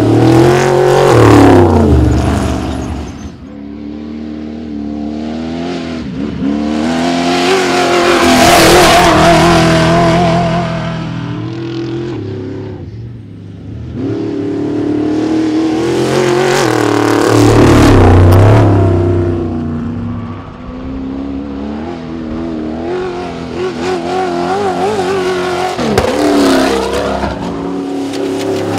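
Trophy trucks' V8 engines running hard as the trucks race past one at a time, several passes in a row. Each swells to a loud peak and fades away, its engine pitch dropping as it goes by, with the revs rising and falling in between.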